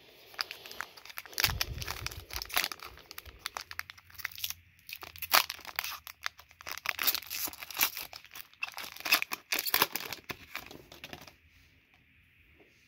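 Foil wrapper of an Upper Deck Artifacts hockey card pack being torn open and crinkled by hand: a dense run of crackling tears and crinkles that stops about a second before the end.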